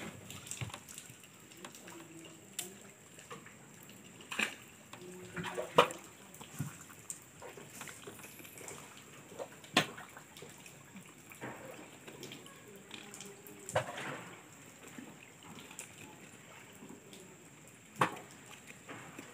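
Hand scoop net worked through shallow river water: scattered small splashes and sloshes, with a few sharper splashes or knocks, the loudest about six, ten and eighteen seconds in.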